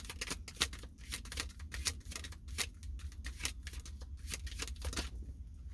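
Tarot cards being shuffled by hand: a quick, irregular run of papery card clicks and snaps that stops about five seconds in, over a low steady hum.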